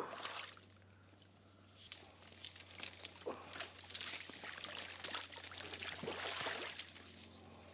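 Water splashing and tule reeds rustling and crackling as a hand gropes through the stems in shallow water, growing busier from about two seconds in and easing off near the end.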